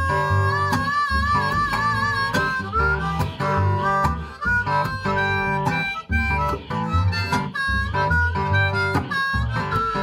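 Country blues harmonica taking the lead over a strummed acoustic guitar. It holds a warbling note for about the first two seconds, then plays a run of shorter notes.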